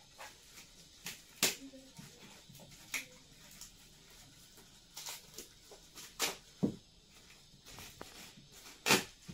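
Hands handling a studio monitor's cables and plastic packaging: a string of short, sharp clicks and crinkles, the loudest about a second and a half in and near the end.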